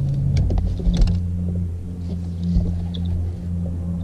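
Steady low hum of an electric bow-mount trolling motor running, with a few light clicks in about the first second.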